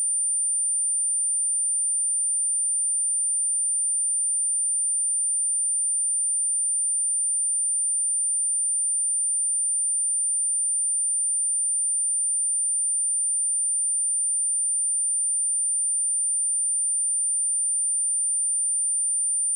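A steady, high-pitched pure sine-wave test tone at 9169 Hz, held at one pitch and one level.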